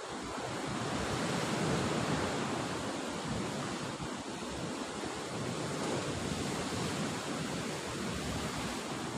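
Sea surf breaking and washing, a steady rushing noise that swells over the first second or two and then holds.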